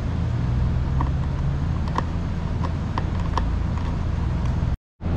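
A few light metallic clicks of a hand socket working the bolts of a motorcycle's plastic tank cover, over a steady low hum in the workshop. The sound drops out briefly near the end.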